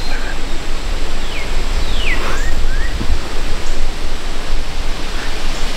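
Steady rushing wind noise on the microphone, with a fluctuating low rumble. A few short bird chirps that slide down and then up in pitch come about two seconds in.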